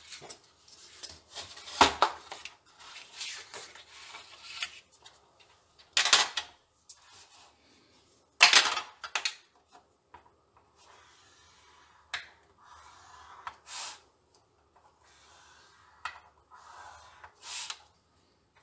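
A Scor-Pal scoring board set down on a cutting mat with a knock about two seconds in, then card stock slid and handled, with two loud scrapes. In the second half a bone folder makes several softer scratchy scrapes as it is drawn along the board's grooves, scoring the card.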